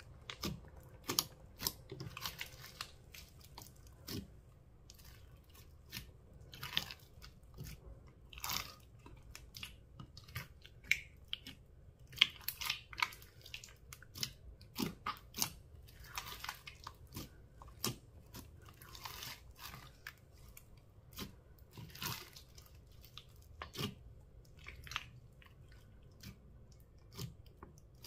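Hands kneading and pressing a large mass of foam-bead slime, giving irregular wet squishing with sticky crackles and pops, some louder than others.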